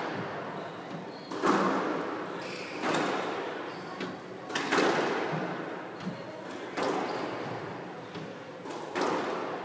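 Squash ball being struck by rackets and smacking off the court walls during a rally: sharp cracks about every one to two seconds, each ringing out in an echoing hall.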